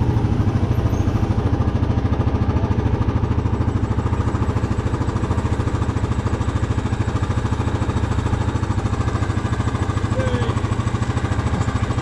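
Four-wheeler (ATV) engine idling steadily, with a fast, even pulse and no revving.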